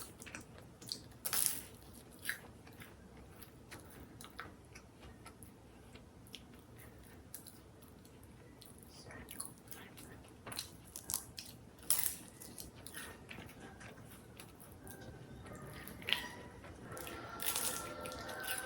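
Close-up eating sounds: crisp bites and chewing of crunchy food, with scattered sharp crunches. The loudest come about a second and a half in, around twelve seconds in and around sixteen seconds in.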